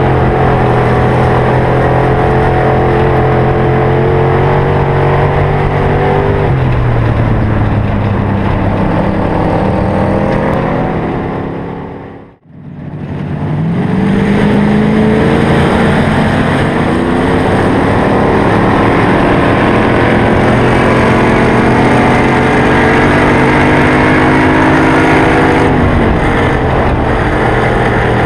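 Hobby stock dirt-track race car's engine heard onboard, running at steady high revs, then dropping in pitch about six seconds in as the driver lifts off. The sound fades out to silence about twelve seconds in and fades back in with the engine climbing in revs, then running steadily until the revs drop again near the end.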